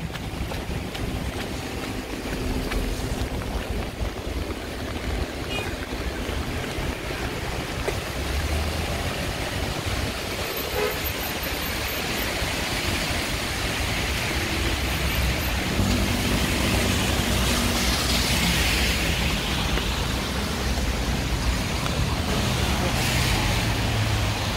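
Heavy rain falling in a city street mixed with road traffic: engines running and tyres hissing on the wet road, growing a little louder in the second half.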